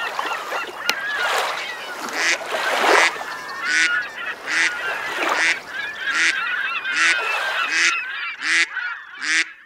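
Waterfowl honking over and over, about one call a second, over a dense layer of short, high bird chirps. Near the end the chirping fades and the honks come closer together, standing alone.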